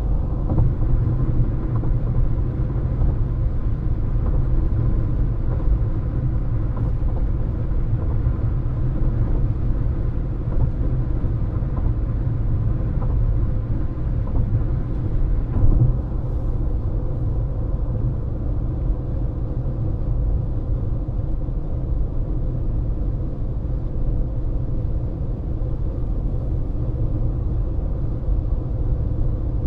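Steady low road rumble of a car driving at speed: tyre and engine noise, with one brief louder bump about halfway through.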